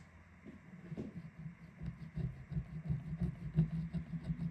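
Small spatula scraping leftover adhesive off a smartphone's frame after the back glass has been removed, in quick, irregular strokes with small clicks.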